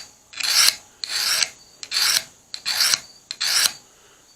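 Triangular file stroked down the beveled edge of stainless kitchen shears: five separate strokes about a second apart, stopping near the end, filing the tool marks off the edge.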